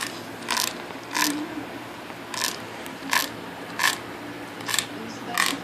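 A wooden stick being chewed, giving seven short creaking, rasping crunches at a slightly uneven pace, roughly one every 0.7 seconds.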